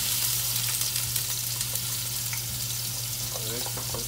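Blended onion puree sizzling steadily as it fries in hot cooking oil in a pot.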